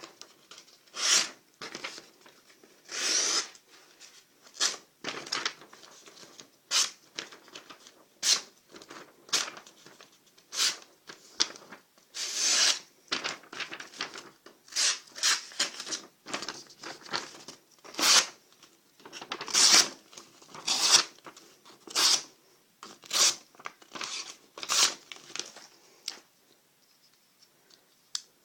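About twenty short cutting or tearing strokes, irregularly spaced with brief pauses between them, stopping a couple of seconds before the end.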